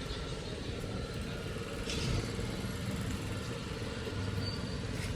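City street ambience: steady rumble of motor traffic, with a vehicle passing a little louder about two seconds in.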